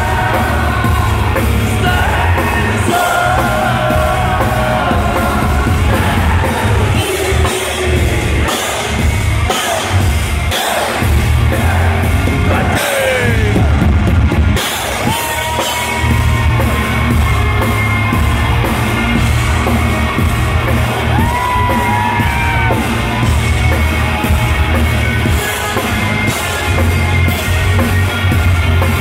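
Heavy metal band playing live in an arena: distorted electric guitars, bass and drums, loud throughout, with singing and a crowd yelling along.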